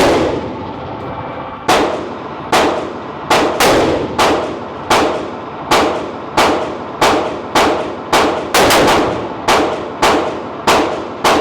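A string of pistol shots, about eighteen in eleven seconds at an uneven pace, each followed by a ringing echo off the range walls.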